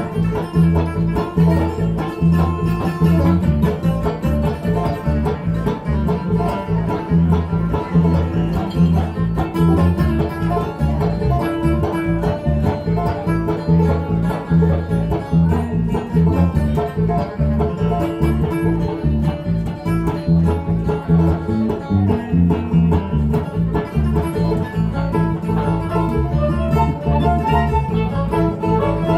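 Bluegrass band playing an instrumental passage live, with fast banjo and guitar picking over a steady low bass pulse and a fiddle underneath.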